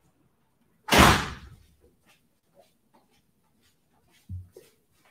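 A door shutting with a loud bang about a second in, ringing briefly as it dies away. A much fainter low thump follows about three seconds later.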